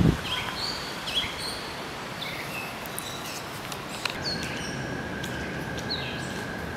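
Outdoor ambience: songbirds giving scattered short, downward-sliding chirps over a steady hiss. About four seconds in, a steady high tone starts and holds.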